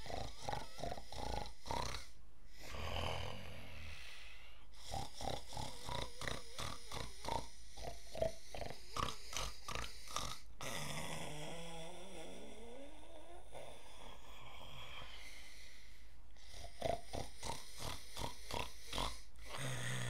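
A man doing a staged snore while lying back, in rattling runs of rapid pulses, with one long wavering pitched drone a little past halfway.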